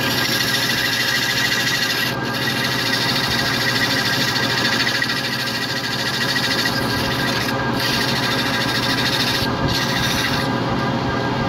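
Ikegai gear-head engine lathe running with a steady hum while hand-held sandpaper rubs against the spinning wooden rosette, making a continuous hiss. The hiss breaks off briefly a few times.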